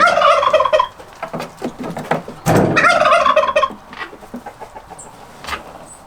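Poultry at the chicken coop calling loudly twice, each call about a second long with a quick, pulsing warble: once right at the start and again about two and a half seconds in.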